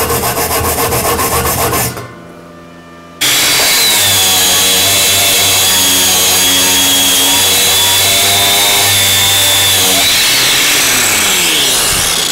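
A wire brush is scrubbed back and forth over steel plate with a rhythmic scraping. After a short lull, an angle grinder starts, runs steadily with a high whine, and winds down with a falling pitch near the end.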